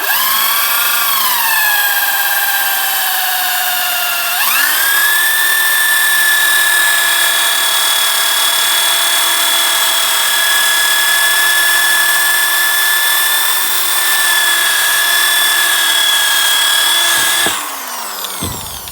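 Power drill spinning a polishing attachment. Its whine sags in pitch over the first four seconds as it is loaded, jumps back up to a steady high speed, and winds down near the end.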